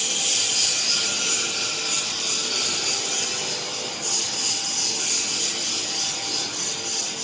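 Plastic film squeezer (screw-press dewatering machine) and its feed conveyor running: a steady, harsh rasping noise with a faint hum of tones underneath and loudness that wavers a little.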